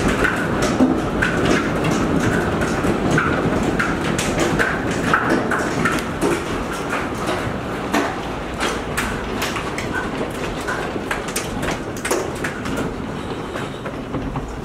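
Heavy hailstorm: a dense, steady rattle of hailstones striking the roof and porch over a continuous roar, with many sharp individual impacts, easing slightly in the second half.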